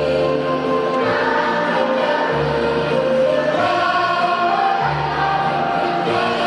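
Children's choir singing over an instrumental accompaniment, with a low bass line that changes note about every one to one and a half seconds.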